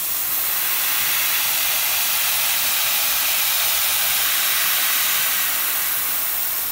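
Air-driven mist coolant sprayer hissing steadily as it blows coolant mist onto the cut.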